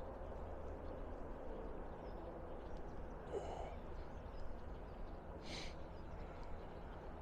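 Quiet outdoor background with a steady low rumble, broken by two faint short sounds: a brief pitched call about three seconds in, and a short high sound a couple of seconds later.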